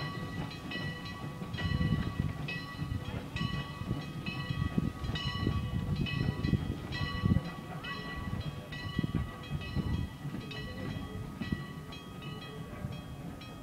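Steam locomotive CPR 2024 running tender-first and moving off, its bell ringing steadily about once a second over the low rumble of the engine and wheels.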